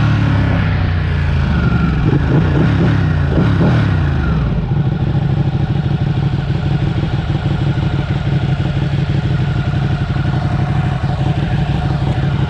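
Sport motorcycle being ridden, its engine pitch shifting up and down in the first few seconds, then holding steady.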